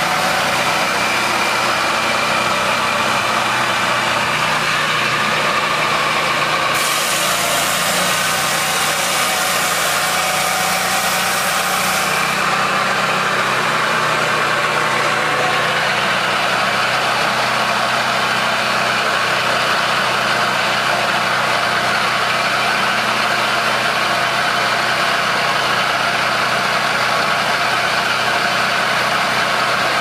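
27 hp Kohler V-twin engine of a Peterson swingblade sawmill running steadily with the saw spinning. A harsher hiss joins in from about seven to twelve seconds in.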